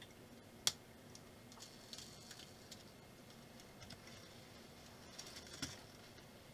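Faint clicks and a light rattle of a small plastic brick-built toy car being handled and pushed back on a felt mat, winding its pull-back motor, with one sharp click about two-thirds of a second in.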